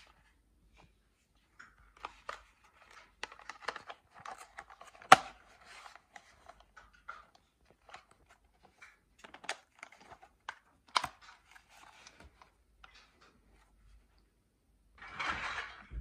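Plastic vacuum-cleaner attachments (Kärcher SV7 floor nozzle and brush heads) being handled and turned over: scattered clicks, knocks and rustles, with two sharp clicks about five and eleven seconds in and a brief louder scraping rustle near the end.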